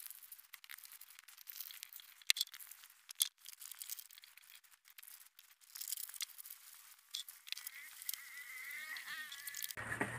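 Fresh banana leaves being torn and folded by hand: a run of light rustles and sharp crackles with short tearing sounds.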